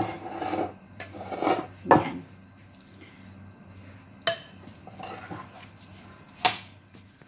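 Metal spoon stirring a moist rice and chopped-vegetable filling in a large ceramic bowl: soft scraping with clinks of spoon on bowl, two sharp ones in the second half.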